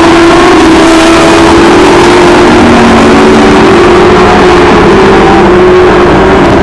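Several race cars' engines running at high revs as they lap and pass, their pitches sliding up and down against one another, very loud.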